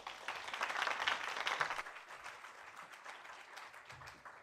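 Audience applauding, strongest about a second in and then gradually thinning out.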